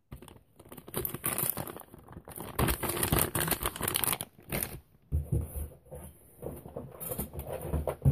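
Plastic soft-bait packages crinkling and rustling as they are handled, densely for about the first five seconds, then quieter rustles with a few dull bumps.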